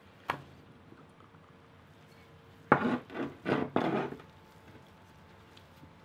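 A gloved hand rubbing grapeseed oil into a raw eye of round beef roast on a wooden cutting board. There is a light knock about a third of a second in, then a quick run of about four loud rubbing strokes against the meat and board around the middle.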